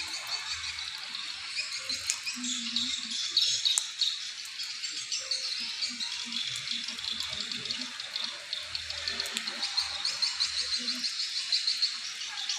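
Dense chorus of swiftlets twittering, many short high chirps overlapping: swiftlets responding to the lure call played in a swiftlet house.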